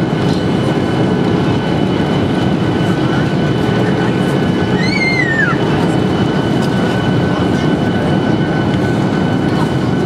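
Cabin noise inside a Boeing 737-800 on approach: a steady rumble of airflow and its CFM56 engines with a faint steady whine over it. A brief high squeal rises and falls about halfway through.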